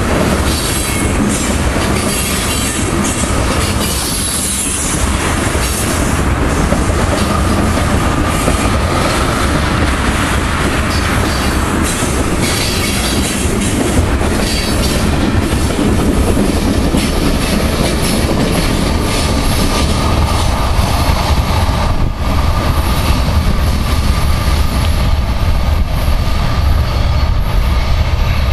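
Freight train of tank cars rolling past close by: steel wheels clicking over the rail joints in a steady run of clacks, with a thin steady wheel squeal from the curving track.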